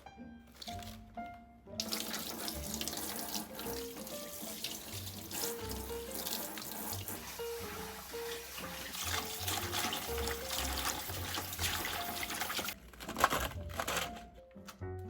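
Water running from a tap into a sink for about eleven seconds, then a shorter, louder burst of noise near the end. Soft background music plays throughout.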